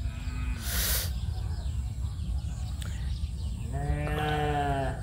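A single drawn-out animal call about a second long near the end, on one steady pitch, after a brief hiss about a second in.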